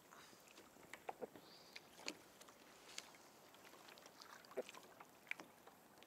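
Near silence, with a few faint, scattered clicks and taps.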